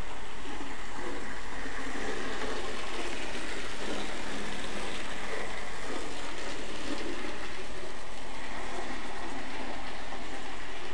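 N gauge model train running on the layout's track, a steady whirring rumble with no distinct clicks.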